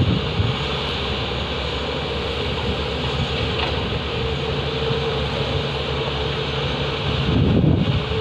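Diesel engines of a Tata Hitachi excavator and a Volvo 460 mining tipper running steadily at work, a continuous heavy drone with a steady hum in it. A louder low rumble swells briefly near the end.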